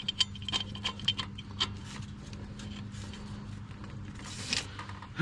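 Scattered light metallic clicks and scraping from hand work on the 10 mm bolts of a replacement EGR valve as they are snugged in, with a brief scraping rustle about four and a half seconds in.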